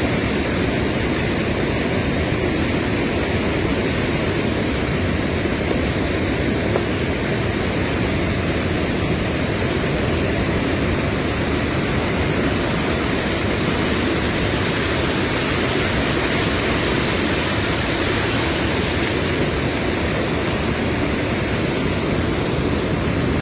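A river swollen with monsoon floodwater rushing past, heard as a loud, steady, even rush of water.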